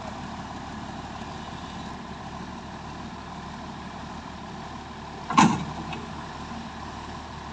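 Heavy diesel engines of a stuck crane truck and a SANY SY205C excavator idling steadily, with one sudden loud knock about five seconds in.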